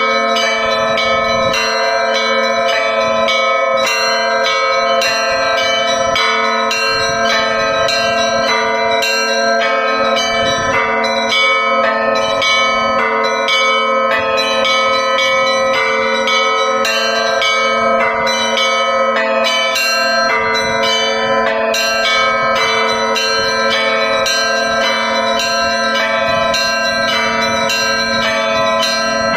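Russian Orthodox church bells rung together in a festal peal: smaller bells struck in a quick, steady rhythmic pattern over the lower tones of larger bells, which keep ringing throughout.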